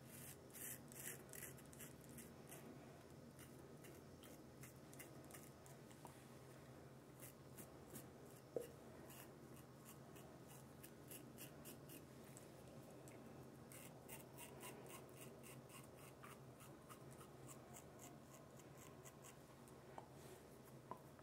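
Feather double-edge safety razor scraping through lathered stubble on the upper lip: faint, quick scratchy strokes in short runs, with a brief tap about eight and a half seconds in.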